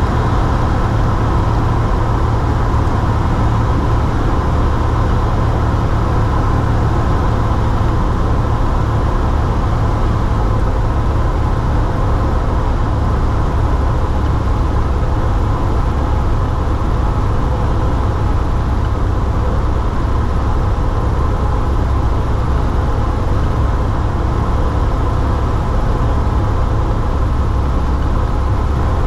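Cessna 172's piston engine and propeller drone heard from inside the cabin: a loud, steady, low drone with no change in power.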